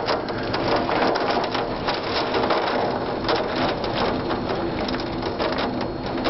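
Wind and heavy rain from an approaching tornado, driving against nearby surfaces in a dense, steady patter of sharp hits.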